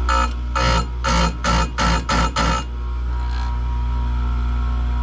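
Oregon bench chain grinder: the motor runs with a steady hum while the wheel is brought down onto a saw-chain cutter in a quick run of short grinds, each under half a second and coming faster, over the first two and a half seconds. After that only the motor runs.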